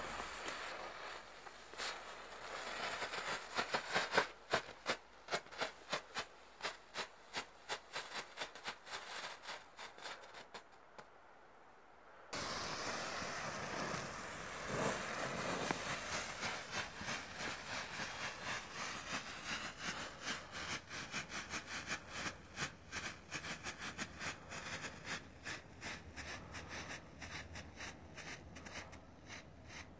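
Firework strobe pellets burning on the ground, each flash giving a sharp crack, several a second with a hiss between. The series breaks off about twelve seconds in and a second pellet takes over, louder and hissier at first, its cracks slowly growing fainter.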